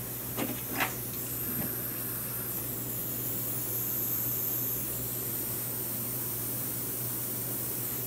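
Two light clicks of small metal parts being handled in a helping-hands clamp, about half a second in, over a steady hiss and low hum.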